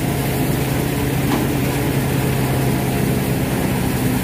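Stationary crop thresher running at a steady, even drone while dried fenugreek plants are forked into its feed chute.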